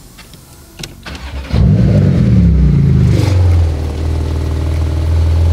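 Porsche 991.2 GT2 RS's twin-turbo flat-six starting on its stock exhaust: a brief crank about a second in, then it catches with a loud flare whose pitch falls over a couple of seconds and settles into a steady idle. It is the first start after a fresh ECU flash tune.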